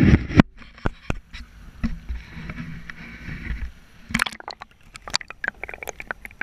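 River water sloshing and splashing around hands and a landing net as a brown trout is lowered into the current for release, with a sharp splash at the start. From about four seconds in, dense crackling and gurgling as the camera goes under the surface.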